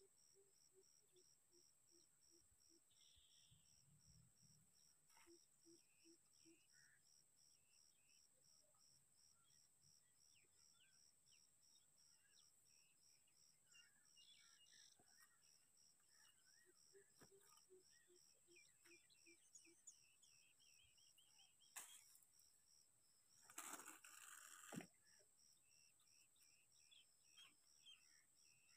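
Near silence with faint insects chirping in a steady, even pulse over a thin high buzz. Near the end come a couple of brief rustles.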